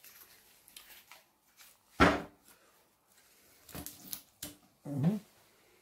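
A plastic squeeze bottle of barbecue sauce being handled: a sharp knock about two seconds in, light rustles and clicks, then a short sputter with a bending pitch as the bottle is squeezed near the end.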